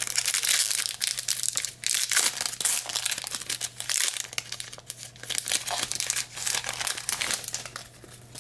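Wrapper of a 2021 Bowman trading card pack crinkling and tearing as it is ripped open and handled, a dense run of crackles that comes and goes.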